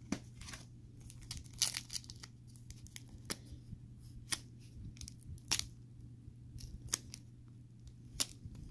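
Foil wrapper of a 2021 Topps WWE NXT trading-card pack crinkling in scattered sharp crackles as fingers pick and pull at its sealed end, trying to tear it open; the seal is stubborn and does not want to give.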